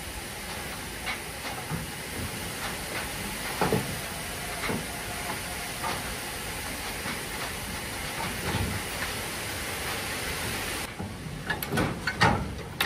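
Sand running out of a Faccs hopper wagon's bottom doors into an unloading-bridge tub: a steady rushing hiss with scattered knocks. The hiss stops abruptly about eleven seconds in, followed by a quick run of knocks near the end.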